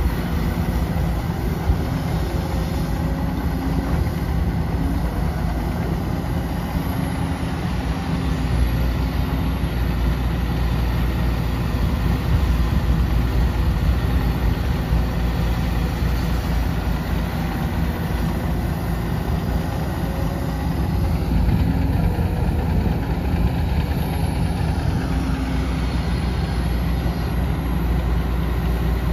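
Diesel engine of a Komatsu PC200 hydraulic excavator running steadily as it digs and loads soil, swelling a little in level now and then.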